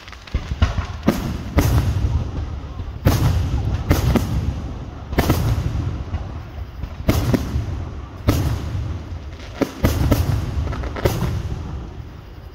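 Fireworks display: aerial shells launching and bursting in a run of about a dozen loud bangs at irregular spacing, each followed by a low rumble.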